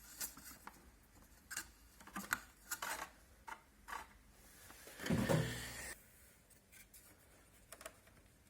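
Hands working on the dehumidifier's fan assembly, fitting washers onto the shaft: scattered small clicks, taps and scrapes of metal and plastic parts, with one brief louder low hum about five seconds in.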